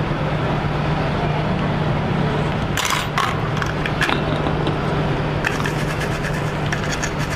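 A small electric blower running steadily: an even hiss with a low hum under it that stops just before the end. A few light scrapes and taps come about three seconds in and again over the last two seconds.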